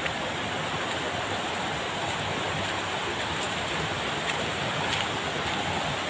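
Rushing water of a rocky river, a steady even rush with a few faint clicks.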